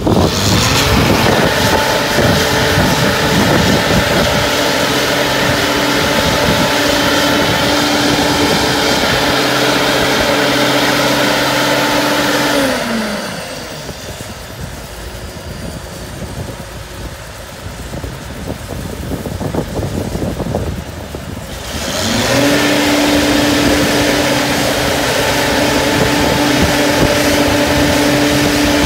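Marine travel lift's engine running steadily at high speed as the hoist lowers a boat, winding down with a falling pitch about 13 seconds in, then speeding back up with a rising pitch about 22 seconds in.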